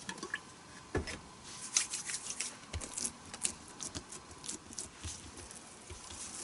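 Oiled hands pressing and kneading soft yeast dough on a silicone mat: faint, irregular squishing and patting with small sticky clicks.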